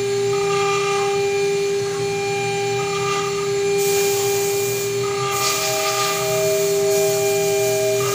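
CNC router spindle running with a steady whine while a fine engraving bit cuts lettering into a brass plate. A scratchy cutting hiss grows louder from about four seconds in, and a second, higher tone joins about a second later.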